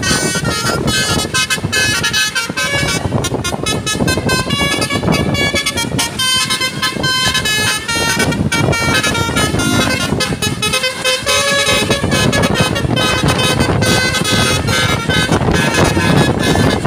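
Basuri V3 telolet horn with upward-facing trumpets playing a loud tune of quickly changing horn notes, several tones sounding at once, over steady background noise.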